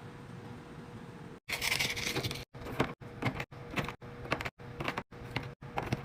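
Packaging and items being handled for a fridge restock: a loud plastic crinkle about a second and a half in, then short bursts of clacks and knocks of items being set down, each chopped off abruptly every half second or so by quick edits.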